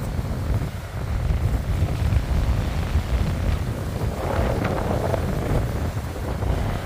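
Strong wind buffeting the microphone: a heavy, gusting low rumble, with a spell of higher hiss about four seconds in.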